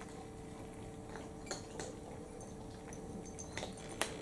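Cats eating from small ceramic bowls: faint, scattered clicks and ticks of chewing and of bowls and teeth against the ceramic, the sharpest one about four seconds in, over a faint steady hum.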